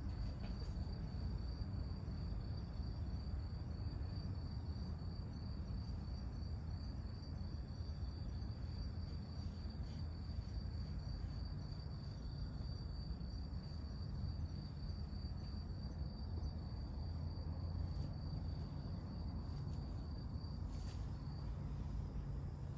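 A cricket trilling steadily, one high, evenly pulsing note, which stops near the end. A steady low rumble lies underneath.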